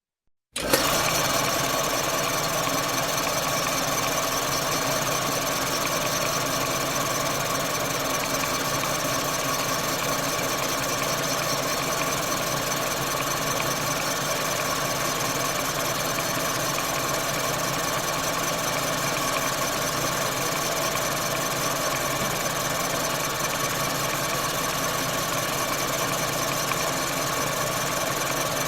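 Lathe running steadily: a dense, even machine noise with several steady hums and whines layered in it. It cuts in abruptly after a brief silence right at the start.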